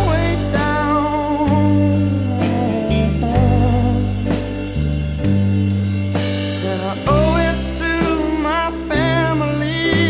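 A song playing: steady bass notes and regular drum hits under a wavering melodic lead line.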